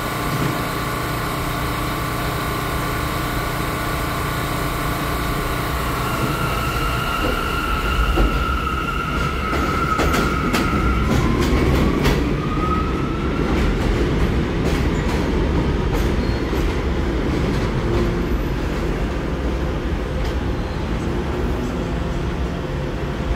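New York City Subway A train pulling out of an elevated station: its motors whine and the pitch rises as it speeds up. Around the middle the wheels clack over the rail joints, over a steady rumble of wheels on track.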